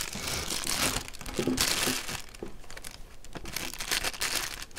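Crinkling of watch packaging being handled, in about three rustling spells with short pauses between.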